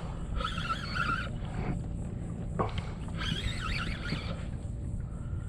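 Wind rumbling on the microphone, with two brief higher-pitched warbling sounds over it.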